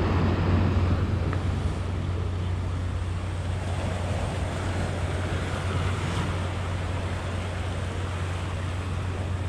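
Wind rumbling on the microphone over the steady wash of sea waves against breakwater rocks.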